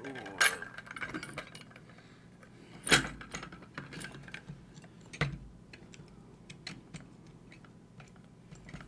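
Small metal tools and lock parts being handled and set down on a hard work surface: a scatter of light clicks and clinks, with three sharper knocks, the loudest about three seconds in.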